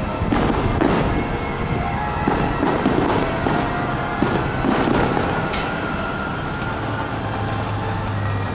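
Aerial fireworks shells bursting in a quick series of booms and crackles, about eight sharp reports in the first six seconds, over a continuous rumble.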